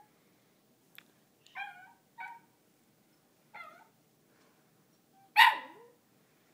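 Small dog giving three short whining yips, each falling in pitch, then one loud bark near the end, begging for its toy.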